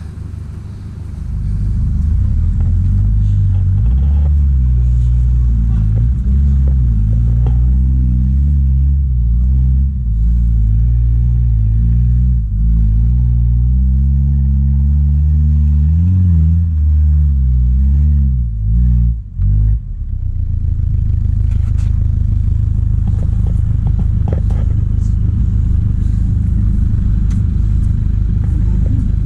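Off-road 4x4 engine running at low revs, its pitch rising and falling with the throttle. About 19 seconds in it breaks off, and a steadier low engine rumble follows with a few light knocks.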